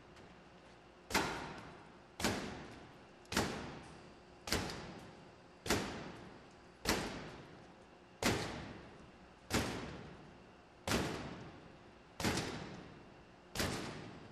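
Repeated heavy blows of a hand-held tool against a cracked glass door pane covered with 3M S140 safety and security film. There are eleven strikes at an even pace of a little over one a second, each a sharp bang that dies away over most of a second.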